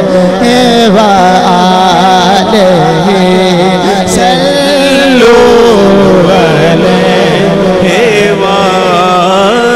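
Loud, continuous wordless melodic interlude of a sung naat: a wavering melody line over a steady low drone.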